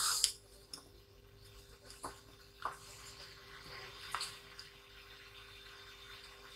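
Faint handling noises on a workbench: a short hiss at the start, then a few scattered light clicks and soft rustling as a small plastic squeeze bottle is picked up and handled, over a faint steady low hum.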